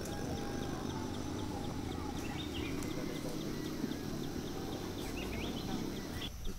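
Outdoor natural ambience over a low steady rumble: a few short bird chirps and a faint high ticking, about four a second, typical of an insect. The sound drops out briefly near the end.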